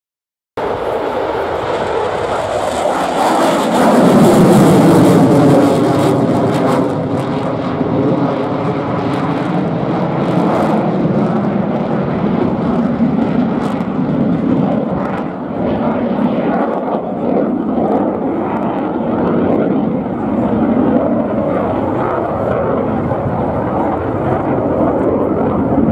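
Jet noise from a Eurofighter Typhoon's two EJ200 turbofan engines, afterburners lit at the start. It is loudest about four to six seconds in as the jet passes, with a falling, sweeping hiss, then settles to a steady rumble as it manoeuvres away.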